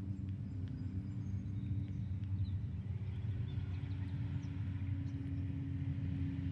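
Steady low engine hum made of several held tones, with a few faint bird chirps above it.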